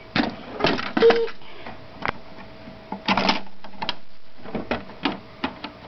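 Handling noise: irregular clicks, taps and knocks as the recording device and toys are moved about, over a faint steady hum.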